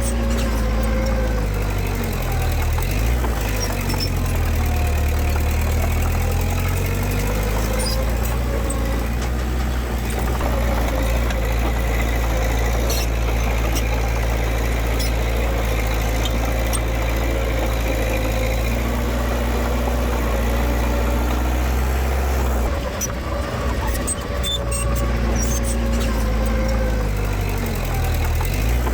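Diesel engine of heavy earthmoving machinery running steadily, its pitch rising and falling slightly as the load changes.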